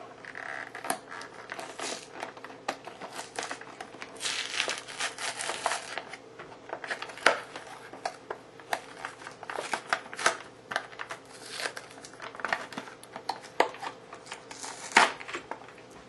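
Action-figure blister pack being pried open by hand: the clear plastic blister and card backing crinkle and crackle with many sharp snaps. There is a longer rustling stretch about four to six seconds in, and the loudest snap comes near the end.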